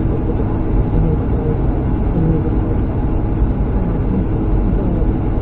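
Semi truck cruising at highway speed, heard from inside the cab: a steady low rumble of engine and tyre noise.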